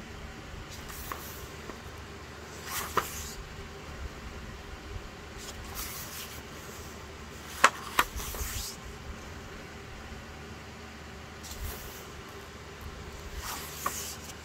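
Paper pages of a paperback colouring book being turned by hand: three separate rustling page turns about five seconds apart. The middle turn is the loudest and has two sharp paper snaps.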